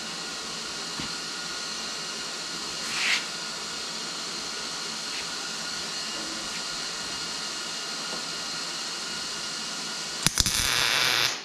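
MIG welder striking an arc near the end: a couple of sharp cracks, then about a second of loud crackling hiss as a tack weld is laid on, cutting off sharply. Before it, a steady background hiss with a brief louder hiss about three seconds in.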